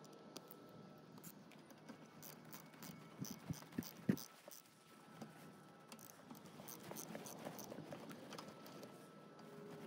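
Allen wrench working the bolts of a disc brake bracket on an ATV front steering knuckle: faint metal clicks and clinks of the tool on the bolts, with a few louder knocks about three to four seconds in.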